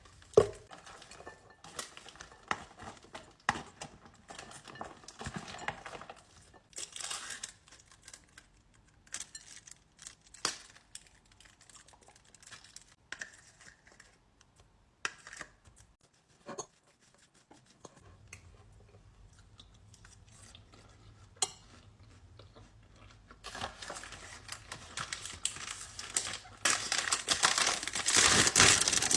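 Close-up eating-table handling sounds: scattered clicks of utensils and dishes with crinkling and tearing of packaging. Near the end comes a longer, louder stretch of dense crinkling.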